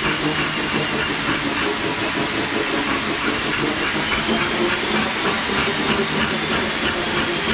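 Dog-powered slat mill running under a galloping dog: a steady clattering hiss of the rolling slats, with a fast even rhythm of ticks.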